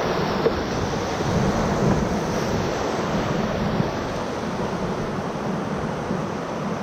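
Whitewater rapids rushing steadily, an even loud rush of moving water.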